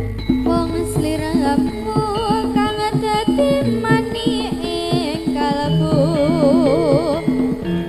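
Live jaranan accompaniment music: steady hand-drum strokes under pitched instruments, with a high melody line that wavers with strong vibrato near the end.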